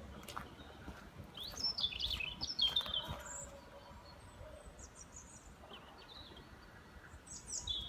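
Small birds chirping and singing in short, high twittering phrases, with one cluster about two seconds in and another near the end. A few faint knocks sound in between.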